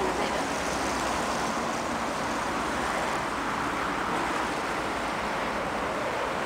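Steady road traffic noise, an even rush of cars passing on a nearby main road.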